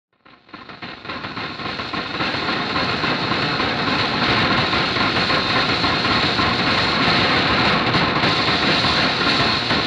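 A dense rumbling noise drone fades in over the first two or three seconds and then holds steady: the noisy intro of a heavy rock track.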